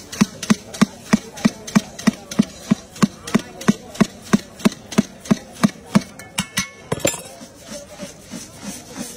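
Metal spoon knocking against the inside of a large steel tin as spiced puffed rice (jhal muri) is stirred, in a quick steady rhythm of about three knocks a second. Near seven seconds in there is a louder clatter, and the knocks go on more softly after it.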